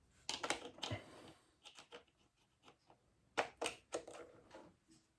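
Scattered mechanical clicks and knocks of hands working a vintage profile projector's controls, in two short clusters: one within the first second and another about three and a half seconds in.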